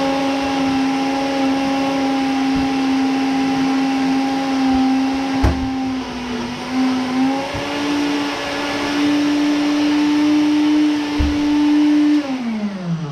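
Countertop blender running on a smoothie with water, its motor whirring at a steady pitch that sags briefly about six seconds in as it takes load. It is switched off near the end and winds down with a falling pitch.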